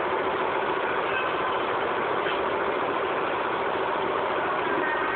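Steady, unchanging whir of a small electric motor.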